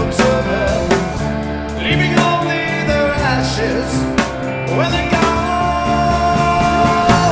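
Rock song played by a full band, with drum hits and a lead melody that slides between notes.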